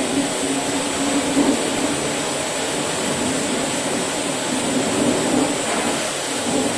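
Automatic brush satin-finishing machine running, its rotating abrasive wheel working along a long metal aircraft fitting. The noise is loud and steady, a rushing hiss over a low hum.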